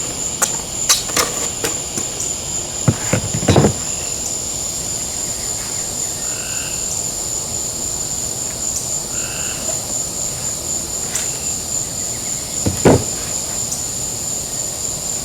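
Steady high-pitched trill of night insects, with two short frog calls about six and nine seconds in. A few knocks and taps come from handling the ruler and marker on the styrofoam, the loudest about three and a half and thirteen seconds in.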